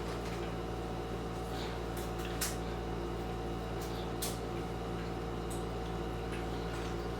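Steady low hum and room noise, with a few faint clicks scattered through it.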